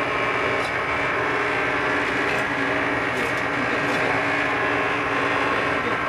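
Steady mechanical drone of running machinery, with several steady tones through it and a few faint clicks.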